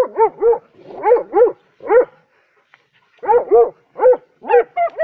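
Hunting dog barking at a badger, about eleven loud barks in quick runs of two or three, with a pause of about a second in the middle. The barking is the dog baying at a badger holed up among rocks.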